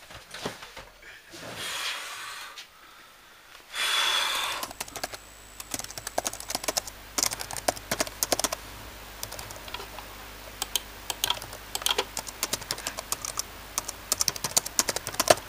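Computer keyboard being typed on: a quick, irregular run of keystroke clicks from about five seconds in, as a status message is written out. A short burst of noise comes just before the typing starts.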